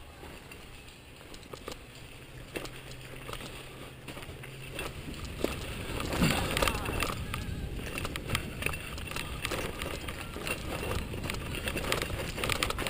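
Mountain bike rolling down a dirt and gravel singletrack: tyres crunching over loose stones, with rapid rattles and knocks from the bike over bumps. It gets louder about halfway through as speed picks up.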